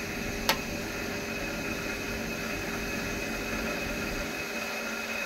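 Steady machine whir with a faint constant hum through it, and a single sharp click about half a second in.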